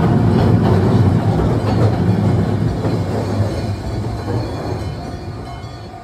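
Keifuku Electric Railroad (Randen) trams running over a level crossing, a steady low rumble of wheels on rail that fades away in the second half.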